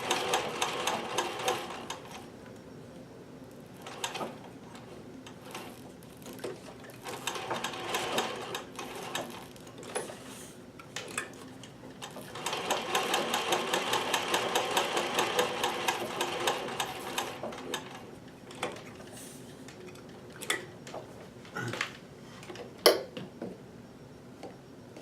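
Consew sewing machine stitching through felt: short bursts at the start, slower stop-and-start stitching, then a steady fast run of several seconds in the middle before it eases off again. A single sharp click comes near the end.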